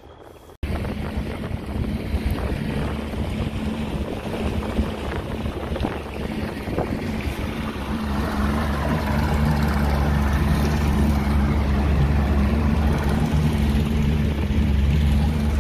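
Motorboat engine running steadily with wind and water noise rushing past. It gets louder about halfway through.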